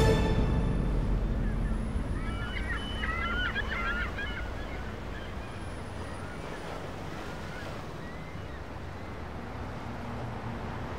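A flurry of bird calls about two to four seconds in, with a few fainter ones around seven seconds, over a steady low rumble of open-air city ambience.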